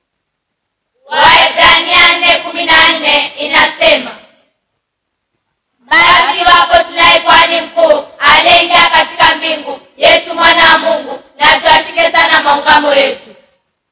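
Group of children singing together in phrases, with a pause of about a second and a half before the fifth second.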